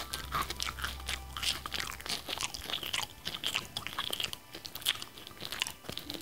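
Someone eating: quick, irregular crunches of biting and chewing food.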